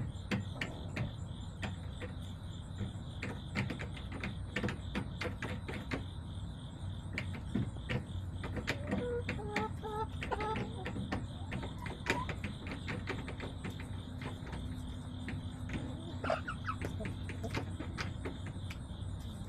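Backyard hens: a steady run of irregular sharp taps from hens pecking, with a few short clucks about halfway through and a brief call near the end.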